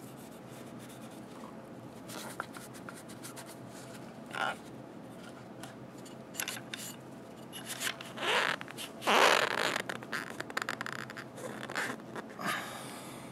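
Cloth rag rubbing over the metal lower receiver of an AR-type rifle, wiping it down with Ballistol: a series of short rasping strokes with light handling clicks, the loudest about eight to ten seconds in.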